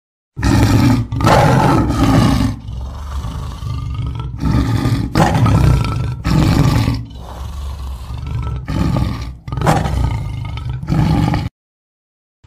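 A big cat roaring and growling over and over in a string of loud bursts. It starts about half a second in and cuts off abruptly about a second before the end.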